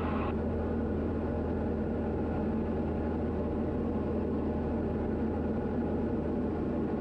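Diamond DA40's engine and propeller droning steadily in level flight, heard inside the cockpit cabin.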